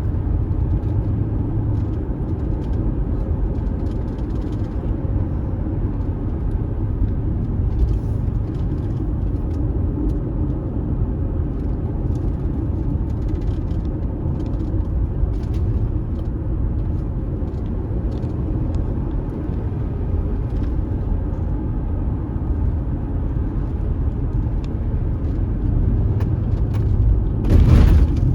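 Vehicle driving along a road: a steady low rumble of engine and tyres with faint scattered rattles, and a short louder swell near the end.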